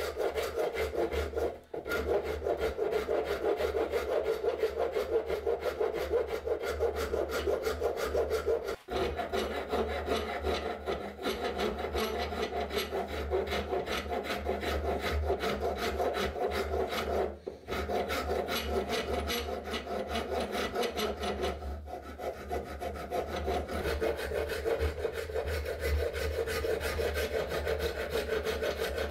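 Steel hand rasp filing a wooden knife handle in rapid back-and-forth strokes, a steady scraping broken three times by brief pauses.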